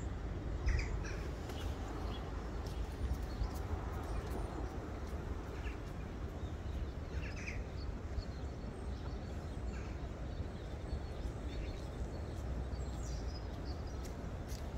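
Steady low outdoor rumble and hiss, with a few short, high bird chirps scattered through it.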